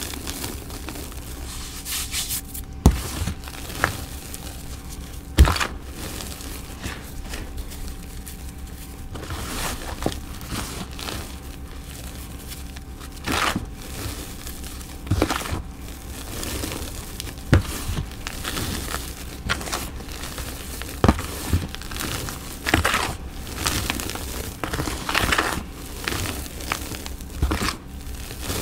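Gloved hands squeezing and crushing handfuls of dyed gym chalk powder in a plastic tub: a continuous soft crunching and crumbling. Sharp knocks about 3 and 5.5 seconds in are louder than the rest.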